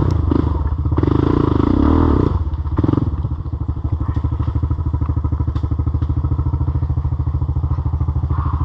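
Off-road vehicle engine revving under load with knocks and clatter for about the first three seconds, then dropping to a steady, evenly pulsing idle.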